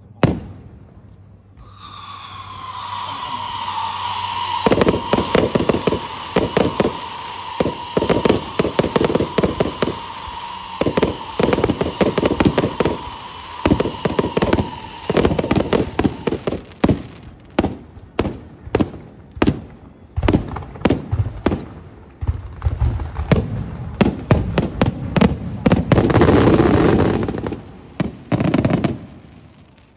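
Aerial fireworks going off. A long, steady whistle starts about two seconds in, dropping slightly in pitch at first, and stops about halfway. Under it runs a rapid, irregular string of sharp bangs that keeps on almost to the end, with a dense, loud cluster of bangs shortly before it dies away.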